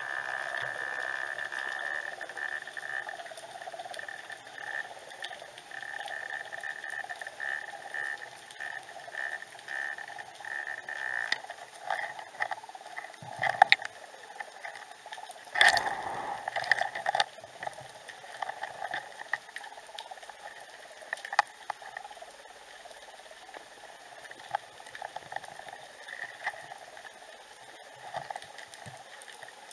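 Muffled underwater sound picked up by a camera's microphone inside its housing: steady bubbling and pattering water noise with a faint hum, stronger in the first third, and a few sharp knocks, the loudest about halfway through.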